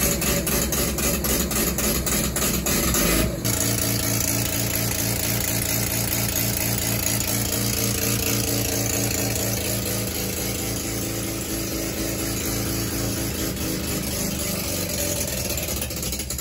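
Freshly rebuilt Mazda 12A full-cut bridgeport rotary engine idling steadily, with an even, rapid pulsing.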